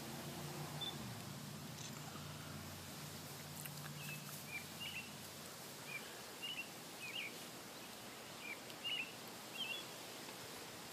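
Faint outdoor ambience: a bird chirping in a string of about ten short, high calls through the second half, over a low steady hum that fades out around the middle.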